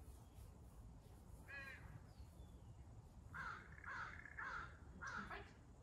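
A crow cawing: one call about a second and a half in, then a run of four caws about half a second apart later on.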